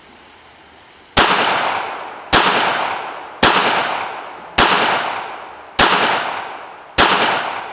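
Small handgun fired six times at a steady pace, a little over a second apart. Each shot is a sharp crack with a long echo trailing off behind it.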